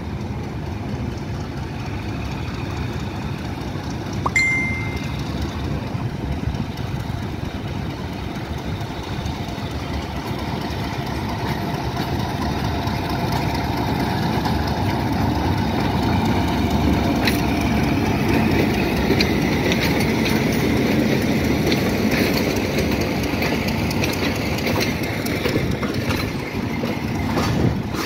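Old Hitachi diesel-electric locomotive hauling a passenger train slowly away from the station. Its engine drone grows steadily louder as it draws near and passes, with wheel clicks on the rails in the later part. A brief high whistle sounds about four seconds in.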